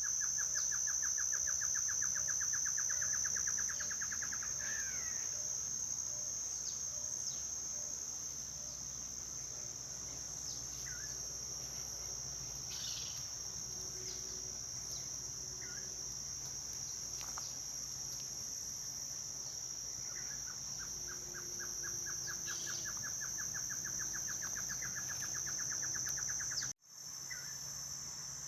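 Steady high-pitched insect chorus, such as crickets, with birds calling over it: a rapid trill of evenly spaced notes at the start and again later, and scattered short chirps in between. The sound cuts out for a moment near the end.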